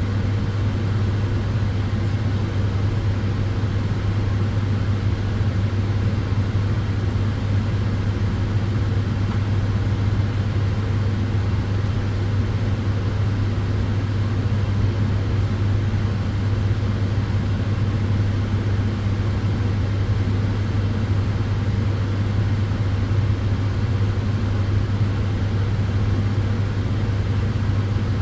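Solarium sunbed running: cooling fans and tube hum, a steady low hum over an even rushing noise that does not change.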